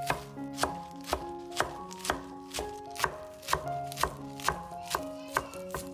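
Knife chopping on a cutting board, a steady run of sharp strokes about two a second, over soft background music with sustained notes.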